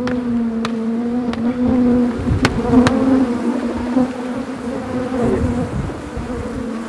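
Honeybees buzzing around an opened hive, one flying close with a steady hum that wavers slightly in pitch. A few light clicks in the first three seconds.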